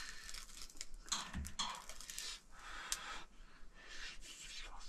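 Light clicking and scraping of metal tongs working sausages over an open stove fire, with a soft thump about a second and a half in.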